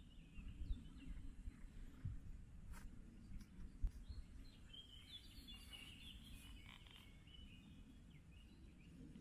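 Birds chirping in short calls, mostly around the middle, over a faint low rumble, with a sharp tap about four seconds in.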